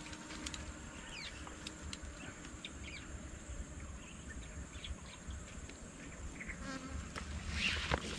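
Insects buzzing and droning steadily in the waterside grass, with a constant high whine and a few short scattered chirps.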